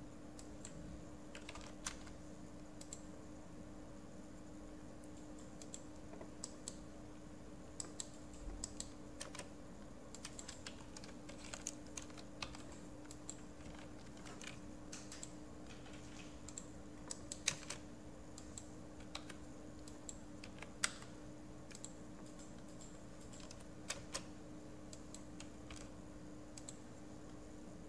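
Computer keyboard typing and clicking: short, irregular keystrokes scattered throughout, a few sharper than the rest, over a faint steady hum.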